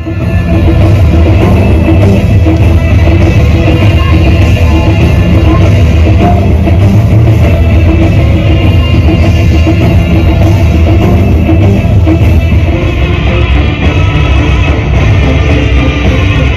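Loud amplified music with a heavy low drum beat, played for a costumed dance show on stage and heard from among the audience.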